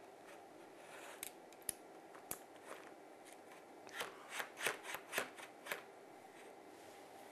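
Faint clicks and short scraping rasps of a camera's quick-release plate being seated and its clamp screw tightened on a Photo Clam ball head. Scattered clicks come first, then a run of five or six short rasps about four seconds in.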